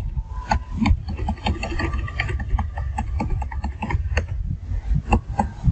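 Computer keyboard keys clicking in an irregular run of presses, about three a second, over a low steady rumble.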